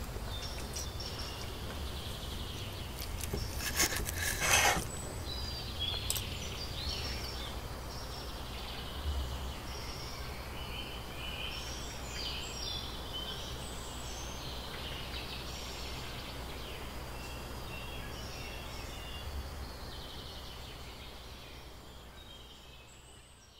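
Outdoor ambience: small birds chirping and singing on and off over a steady low rumble, with a few sharp knocks a few seconds in, all fading out near the end.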